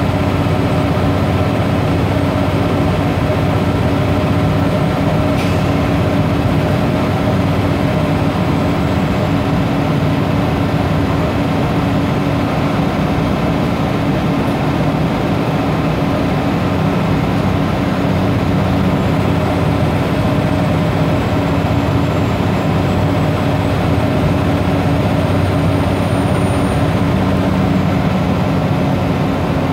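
Scania OmniCity bus heard from inside the saloon on the move: a steady engine drone with road noise. A faint high whistle wavers up and down in the last third, and there is one small click about five seconds in.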